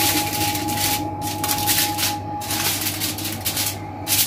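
Aluminium foil crinkling and crackling in irregular bursts as hands fold it and press it down around the rim of a baking tray.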